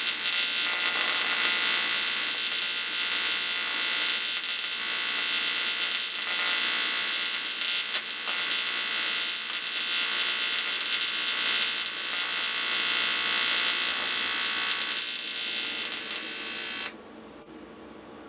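AC TIG welding arc on aluminium, a steady buzz, cutting off suddenly near the end as the arc is broken.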